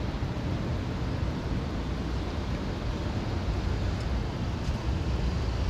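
Steady city street traffic noise: cars running and passing at an intersection, a low, even rumble with no single standout event.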